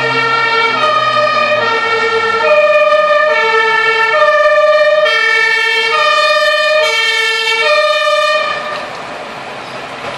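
Loud German two-tone emergency-vehicle siren (Martinshorn), alternating between a low and a high tone held a little under a second each. It cuts off suddenly about eight seconds in, leaving a lower steady engine and street noise.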